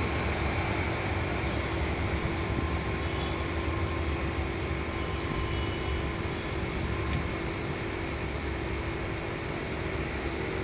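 Turboprop airliner climbing away after takeoff, its engine and propeller drone steady and slowly fading into the distance.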